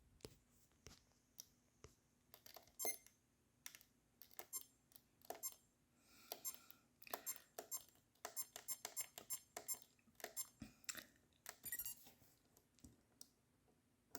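Faint plastic clicks of a Sony Mavica MVC-FD200 digital camera's buttons being pressed while stepping through its menus. The clicks are scattered at first, then come in quick runs of several a second through the middle.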